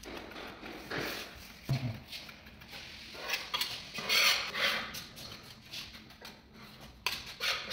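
Irregular light clinks, knocks and scraping, with bursts of rustling: hand work with tools and materials.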